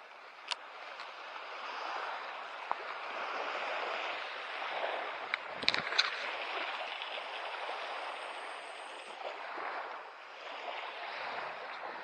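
Small sea waves washing onto the shore, swelling and easing. A few sharp clicks sound over them, with a cluster about six seconds in.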